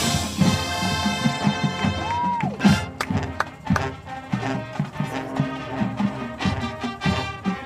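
High school marching band playing its field show: brass over steady drum beats, with a sharp loud hit at the very start.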